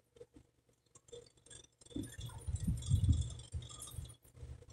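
Hands and a knife working a raw whole chicken on a plastic cutting board: faint clicks, then a run of soft thuds and knocks from about two seconds in.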